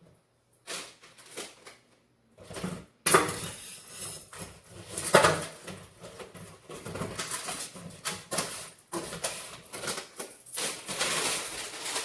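Irregular knocks and clatter of things being handled in a kitchen, with a sharp, loud knock about three seconds in and another about five seconds in.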